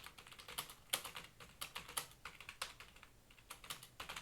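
Fast typing on a computer keyboard: a quick, uneven run of key clicks, thinning out briefly about three seconds in.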